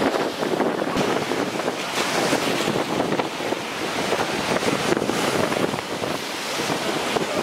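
Sea surf breaking and washing against a rocky shore, with wind buffeting the microphone.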